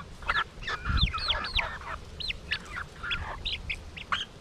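Young silkie chickens calling over one another with many short chirps and squawks as they are fed, with wind buffeting the microphone.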